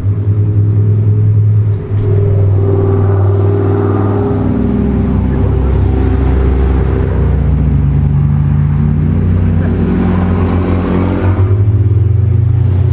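Car engine running, its pitch slowly rising and falling as the engine speed changes.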